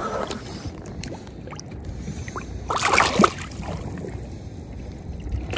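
Sea water sloshing and splashing against a hand-held bass being revived at the boat's side, with a brief burst of splashing about three seconds in as the fish kicks. A steady low rush of water and wind runs underneath.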